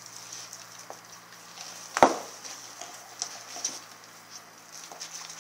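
Rottweiler gnawing a raw lamb shank: scattered chewing and small clicks of teeth on meat and bone, with one loud sharp knock about two seconds in.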